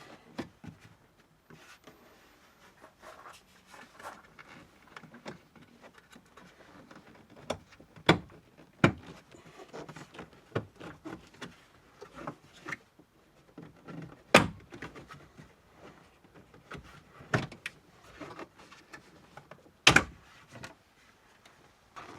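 Clipped plastic interior trim shells being pried off a tailgate: a series of sharp clicks and snaps from the clips and panels, with quieter plastic handling between them. The loudest snaps come about eight, nine, fourteen and twenty seconds in.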